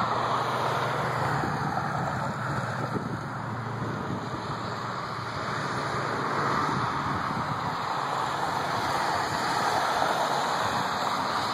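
Vehicles driving past on a wet road, tyres hissing: a pickup truck with its engine hum at the start, then a van passing about ten seconds in, over a steady rushing background.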